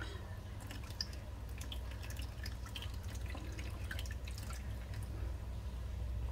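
Orange juice and gelatine mixture poured from a saucepan into a paper-lined baking tray: the liquid trickles and splashes, with many small drips.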